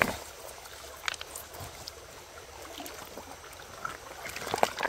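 Shallow rocky stream running steadily, with a few sharp knocks and small splashes of hands and stones in the water, several in quick succession near the end.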